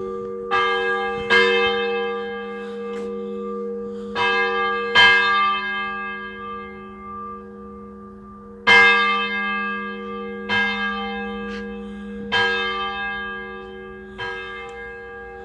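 Church bells being struck: eight strokes at uneven intervals, some in quick pairs, each leaving a long humming ring that overlaps the next.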